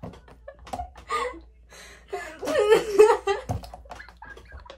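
Two girls laughing and giggling in short, broken bursts, loudest about halfway through.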